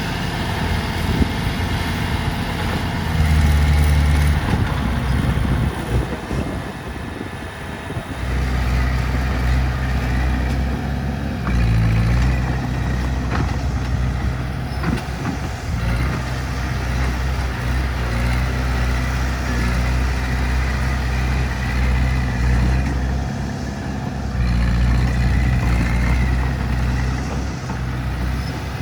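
Heavy diesel engine running under a varying load, its note rising briefly a few seconds in, then settling into a steady run.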